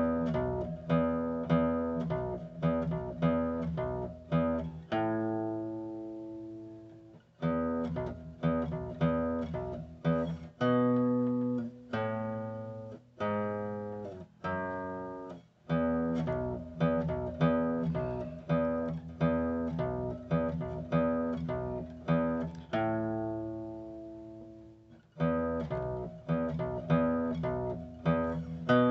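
Four-string bass guitar played solo, plucking a bass line in a steady rhythm. A few held notes ring out and fade between the runs.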